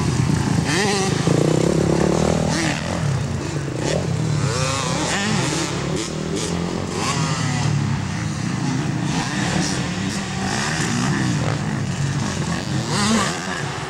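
Motocross bike engines racing around a dirt track, repeatedly revving up and falling off as riders accelerate out of turns and over jumps.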